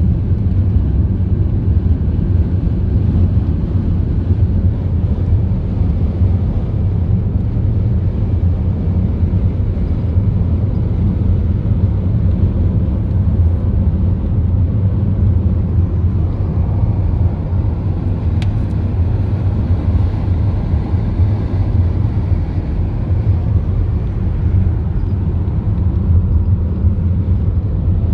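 Car driving at a steady speed: continuous low rumble of road and engine noise.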